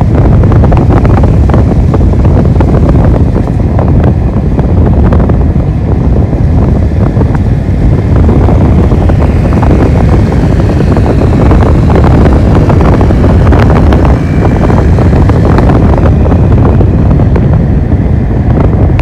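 Loud wind buffeting the microphone of a phone held at the window of a car moving at road speed, over the car's steady road noise.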